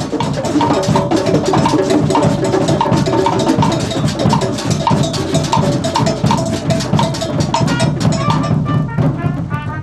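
Drum kit played in a fast, busy pattern. A short ringing note repeats about every half second over the drums, and the playing stops near the end.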